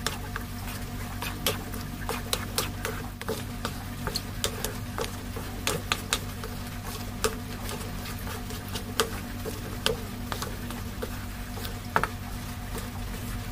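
Wooden spatula stirring and scraping a thick grated-cassava mixture in an aluminium wok, with frequent irregular clicks and taps of wood on metal over a steady low hum. The mixture is being cooked down until it thickens.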